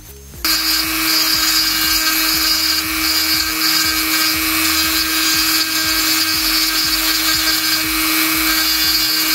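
Small high-speed rotary tool (mini drill) switched on about half a second in, then running steadily at one high pitch.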